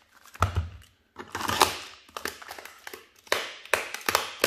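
A small cardboard box wrapped in clear plastic being opened by hand: a run of crinkles, scrapes and sharp taps, with the longest and loudest rustle about a second in.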